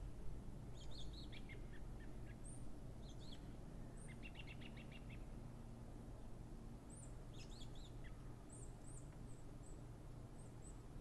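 Small songbirds singing and chirping over a low steady background noise: short song phrases about a second in, a rapid trill about four seconds in, another burst of song around seven seconds, then a string of high thin chirps near the end.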